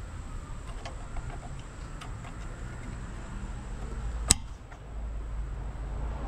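Small clicks of a snap-in clip nut being pushed and worked by hand onto a hardtop mounting bracket, with one sharp, louder click about four seconds in.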